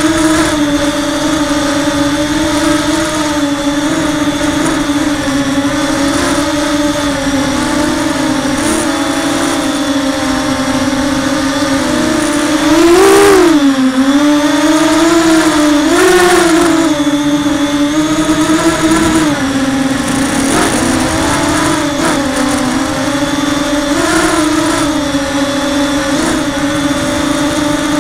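Brushless motors and propellers of a Blackout Mini H FPV quadcopter heard from its onboard camera: a steady motor tone that rises and falls in pitch with the throttle. It climbs and dips most sharply, and is loudest, about halfway through.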